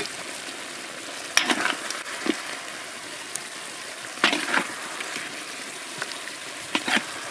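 Chicken heads sizzling in a sweet sauce in a metal wok, a steady frying hiss. A metal spatula scrapes and knocks against the pan three times, about a second and a half in, around the middle and near the end.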